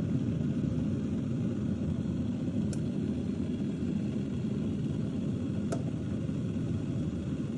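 Electric kettle (Multinel Hot Pot Plus) with its water just short of the boil, at about 94 degrees: a steady low rumble of the heating water.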